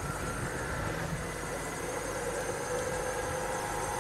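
Level crossing warning signal sounding with faint steady tones while the half-barriers start to lower, over a low rumble from cars idling at the crossing.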